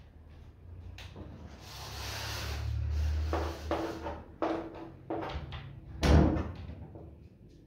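Chalk drawing lines on a chalkboard: a run of about six short scraping strokes, one for each line of a hexagonal ring, with a louder knock of chalk on the board about six seconds in. Before the strokes comes a longer rustling hiss.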